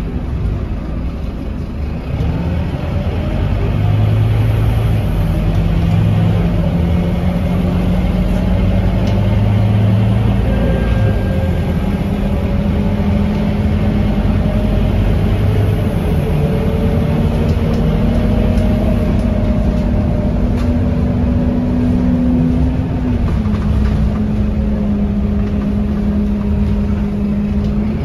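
Scania K230UB bus engine running under way: a steady, loud drone that rises in pitch over the first few seconds, holds, then drops a little about two-thirds through before climbing again near the end.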